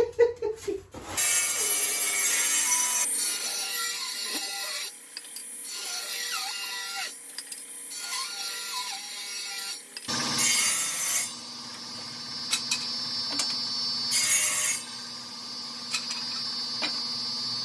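Power saw cutting oak boards, with several loud cutting passes over the steady run of the motor.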